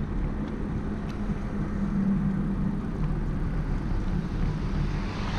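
Steady wind and road noise from riding a bicycle along an asphalt road, heard from a camera on the moving bike, with a faint low hum under it.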